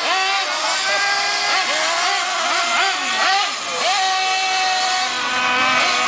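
Several radio-controlled model cars racing, their motors revving, the pitch rising and falling as each car speeds up and slows.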